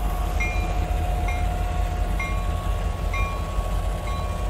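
Diesel freight locomotive rolling with a steady low rumble as it pushes a wrecked semi-truck along the track after hitting it at a crossing. A steady metallic whine runs through it, and a bell rings about once a second.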